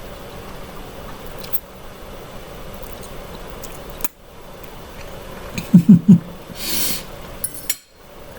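Someone eating linguine: a few light clicks of a fork against a plate, three short loud hummed "mm" sounds about six seconds in, then a brief slurp of noodles.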